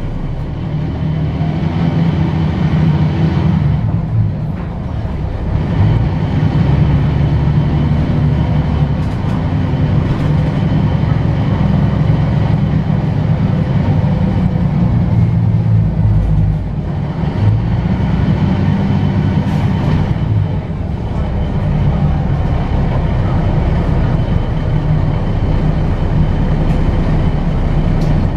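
Articulated city bus's engine and drivetrain running under way, heard from inside the passenger cabin: a steady low drone that dips briefly a few times as the load changes.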